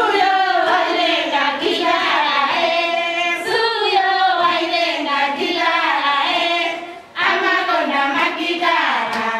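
Voices singing a song, with held, wavering notes; the singing breaks off briefly about seven seconds in and then goes on.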